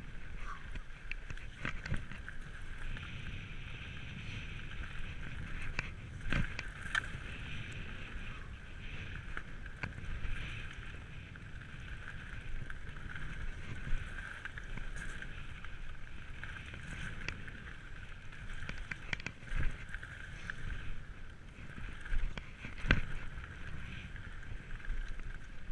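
Specialized Kenevo electric mountain bike riding fast down a gravel trail: tyres rumbling over the surface and wind on the microphone, with a steady high-pitched whine. Sharp knocks and rattles come as the bike hits bumps, the loudest near the end.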